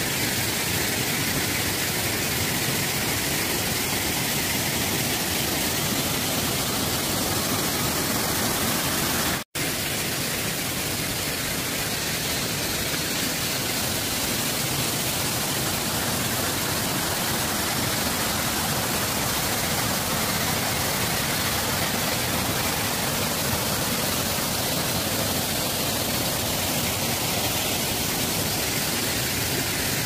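Cascading waterfall rushing steadily down a series of rock steps, a dense even roar of falling water. The sound cuts out for an instant about nine and a half seconds in.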